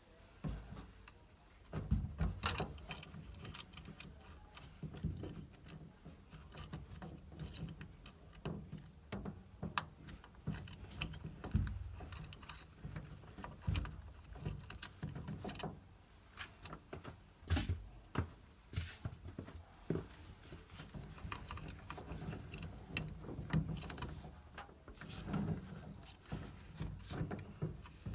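Hands working on a boiler's pump with tools and parts: irregular clicks, taps and knocks of metal and plastic, with dull low thumps now and then.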